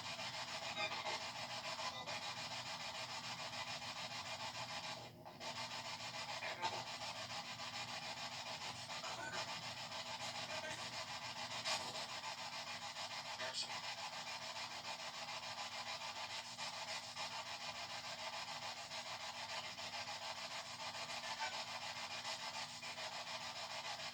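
Steady hissing noise with a few faint clicks; it dips briefly about five seconds in.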